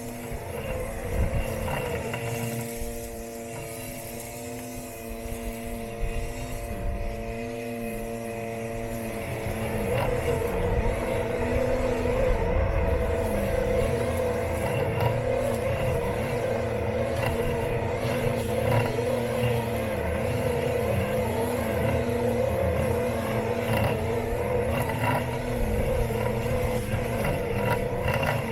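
Robot lawn mower running, heard from a camera taped onto it: the steady whine of its electric motors, with a lower tone wavering up and down, and rumbling as it travels over the ground. It gets louder about ten seconds in.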